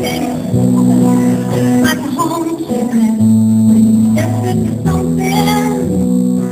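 A live song on acoustic guitar: chords played steadily, with a woman singing.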